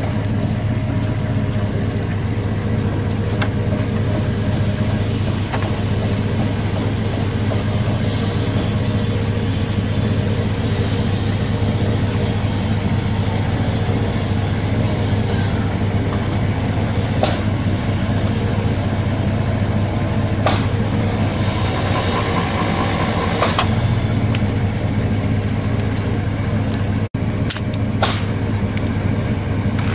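An engine idling steadily, a low even hum, with a few sharp clicks of tools on the well pipe in the second half.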